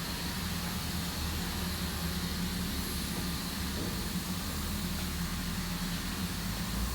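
Steady drone of running sawmill machinery: a constant low hum with a high whine and hiss over it, plus an uneven low rumble.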